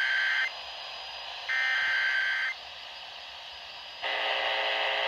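Emergency Alert System SAME header: about one-second bursts of screechy two-tone digital data with a second of silence between them, the start of an EAS warning. About four seconds in, a steadier buzzy alert tone begins.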